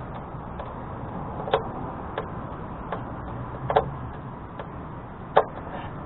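Screwdriver tightening a metal hose clamp on a car's muffler pipe: six sharp metallic clicks, about one every three quarters of a second, over a steady low rumble.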